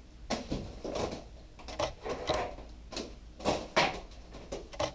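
Cream pies splatting and metal pie tins clattering: several sharp hits spread across a few seconds.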